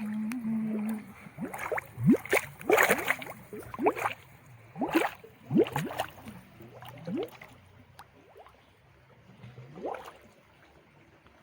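Shallow water sloshing and gurgling in a run of short splashes as a cloth-covered bait pot is lowered into it, dying away after about eight seconds.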